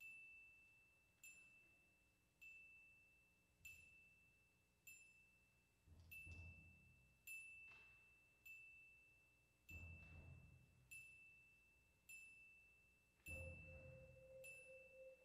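Very soft percussion ensemble music: a single high, ringing mallet note struck about every 1.2 seconds and left to decay, over soft low swells that come about six, ten and thirteen seconds in. Near the end a steady middle-pitched tone enters and holds.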